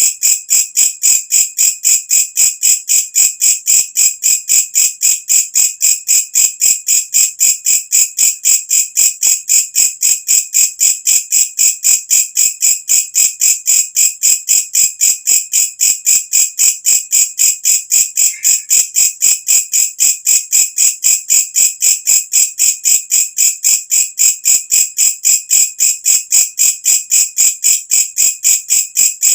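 Walang kecek bush cricket (katydid) calling: a loud, shrill chirp repeated evenly about three times a second without a break.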